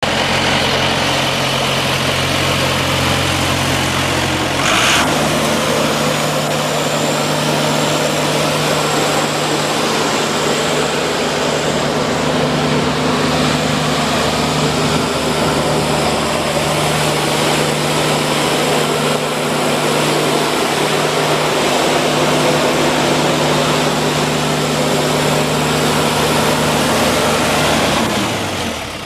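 Four-cylinder Cummins turbo diesel of a Morbark 290 wood chipper running at idle, then with a clunk about five seconds in it steps up to a faster steady speed. A thin high whine joins soon after, and near the end the engine slows back down.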